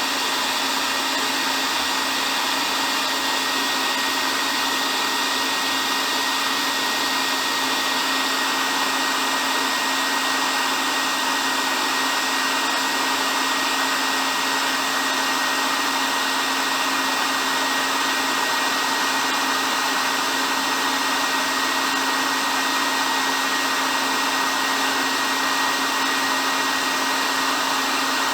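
Hair dryer running continuously: a steady, unchanging airflow rush with a faint motor whine.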